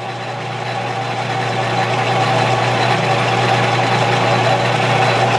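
Metal lathe running with a steady motor hum while a cutter shaves a spinning wooden handle blank; the hissing cutting noise grows louder over the first two seconds and then holds steady.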